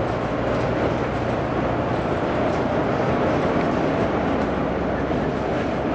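Volvo B9TL double-decker bus's rear-mounted six-cylinder diesel engine running steadily at cruising speed, heard from inside the cabin together with road and body noise.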